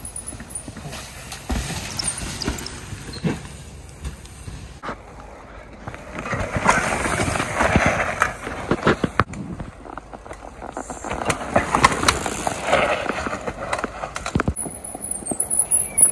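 Mountain bikes descending a steep dirt trail: tyre noise over mud and roots that swells and fades, with rattles and sharp knocks from the bikes.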